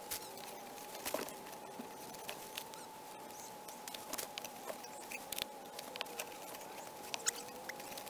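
Scattered small clicks, taps and gritty scrapes of gloved hands working a metal pipe and sand fill in the top of a terracotta chimney pot, over a faint steady tone.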